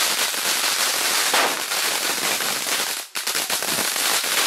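Diwali firecrackers crackling in a rapid, continuous run of small bangs, with a brief break about three seconds in before they start again.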